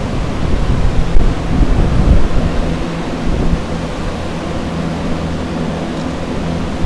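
Several carpet air movers and a Phoenix dehumidifier running together for water-damage drying: a loud, steady rush of blowing air over a low hum, with irregular low thumps in the first few seconds.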